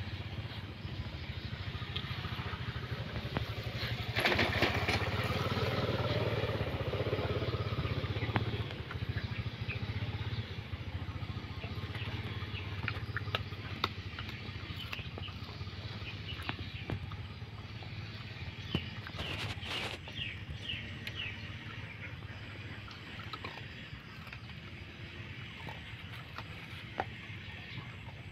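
A dog eating rice from a tub, with small scattered chewing ticks, over a steady low engine rumble. About four seconds in, a passing engine swells to the loudest part and fades by about eight seconds.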